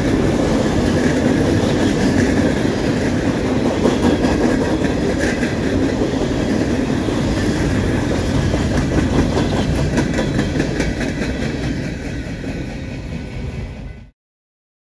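Coal train hopper cars rolling past on the rails: a steady rumble with rapid wheel clatter over the rail joints. It fades gradually in the last few seconds as the end of the train passes, then cuts off suddenly near the end.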